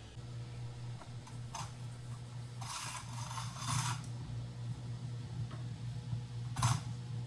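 Household handling noises: a scrape or rub lasting about a second and a half near the middle and a few short clicks, over a steady low hum.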